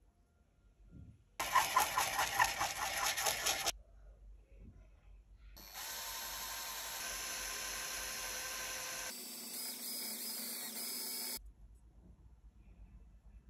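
A diecast metal toy-car baseplate scrubbed back and forth on sandpaper in a loud, rough, rhythmic burst of about two seconds. Then a small cordless drill with a fine bit runs steadily for several seconds, drilling holes in the diecast body. Each sound starts and stops abruptly.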